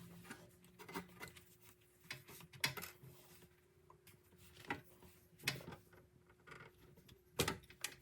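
Water-filter housings and cartridges being handled during a filter change: a few scattered, short clicks and knocks, the loudest near the end, over a faint steady hum.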